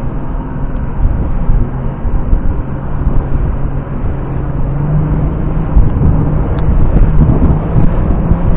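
Mercury 250 Optimax Pro XS two-stroke V6 outboard running at speed, a steady hum that rises slightly about halfway through. Under it is the rush of wind and water as the hull runs through choppy water.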